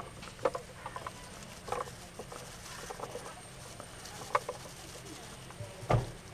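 Cashews, almonds and chicken pieces tipped out of a clay pot onto a ceramic plate: scattered light taps and clicks as nuts drop and the pot touches the plate, over a steady low hum.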